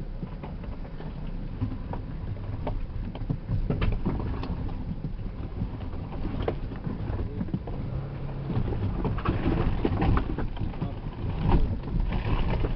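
Off-road vehicle crawling slowly over a rocky track, heard from inside the cab. The engine rumbles low and steady under irregular knocks and bumps as the tyres and suspension go over stones.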